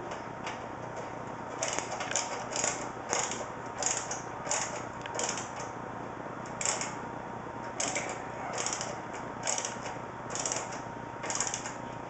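Screwdriver driving a fan screw through the steel top panel of a PC case into a plastic case fan, with a short scratchy click at each turn. About a dozen of them come roughly once a second, starting about a second and a half in.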